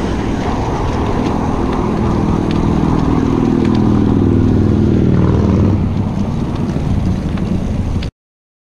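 Motor traffic passing on the road beside a moving bicycle: a steady low rumble with an engine note that swells and falls in pitch as a vehicle goes by about five seconds in. The sound cuts off suddenly near the end.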